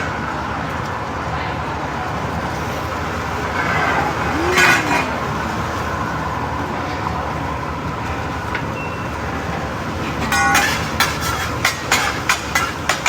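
Steady griddle and restaurant noise, then from about ten seconds in, sharp metal clacks repeating a few times a second, typical of a hibachi chef's spatula and fork striking the steel teppanyaki griddle.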